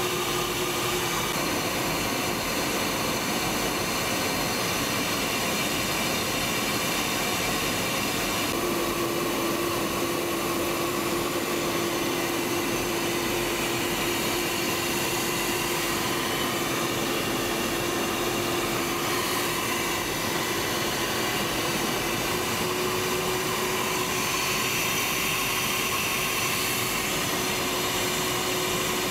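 Steady in-flight cockpit noise of a Panavia Tornado GR4: the rushing hum of airflow and its two RB199 turbofan engines, even and unbroken, with a faint held tone running through it.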